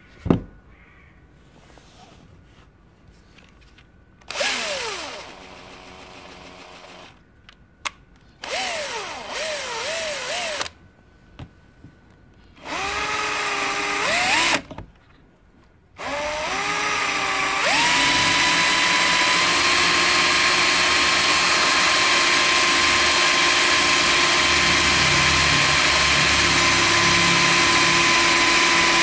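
Bosch GSR 1440-LI 14.4 V cordless drill/driver drilling into a Nokia 3310 mobile phone. The motor runs in three short bursts with its pitch rising and falling as the bit bites. From about halfway it runs steadily and loudly as the bit bores into the phone's front and screen. A sharp knock sounds just after the start.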